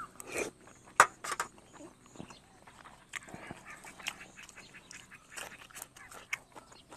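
A person eating: a slurp of soupy curry from a spoon near the start, then chewing and mouth smacks with scattered sharp clicks, the loudest about a second in.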